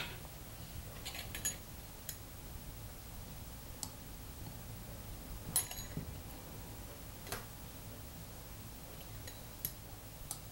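Scattered faint clicks and light taps as hands handle a fondant sheet and its paper template on a work mat, over a low steady room hum.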